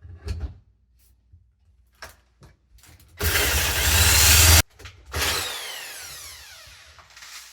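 Power drill with a hole saw cutting into a metal-plated door: a short knock, then a loud run of about a second and a half that cuts off sharply. A second brief run follows, its whine falling in pitch as the drill spins down.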